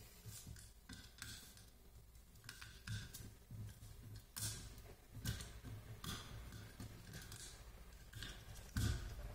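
Faint, irregular clicks and taps of a small plastic RC drift car chassis and its parts being handled on a tabletop, with a louder knock near the end.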